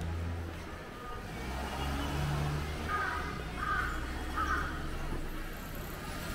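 Street ambience at a road crossing: a steady low hum of car engines, with three short calls evenly spaced a little under a second apart midway through, a crow cawing.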